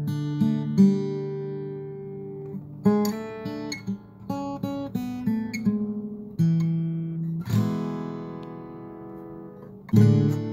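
Background music on acoustic guitar: picked single notes and strummed chords that ring out, with a full strum about three seconds before the end.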